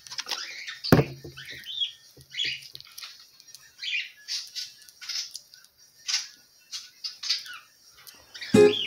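Irregular short scratching and rustling sounds, with one sharp knock about a second in. Strummed acoustic guitar music comes in near the end.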